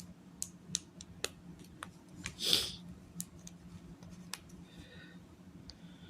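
Plastic Lego Technic pieces clicking and tapping as they are handled and fitted together, a few separate sharp clicks spread through, with a brief rustle about halfway that is the loudest sound. A faint steady low hum lies underneath.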